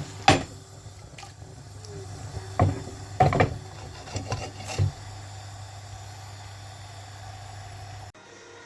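A few sharp knocks and clatters of a utensil against a pan, over a steady low hum that cuts off near the end.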